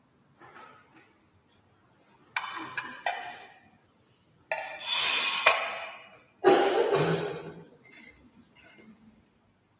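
Metal thurible (censer) clinking as it is handled for the incensing: its chains and lid knock against the bowl, a run of sharp ringing clinks that starts about two seconds in, is loudest around the middle and thins out near the end.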